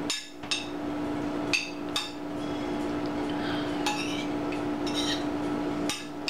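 Metal spoon clinking against a plate, several sharp clinks at irregular intervals, as rice and beef stew are scooped up. A steady low hum runs underneath.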